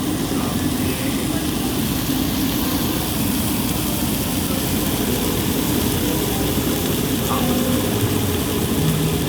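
Steady noisy roar of a busy teppanyaki grill and dining room, with faint voices underneath.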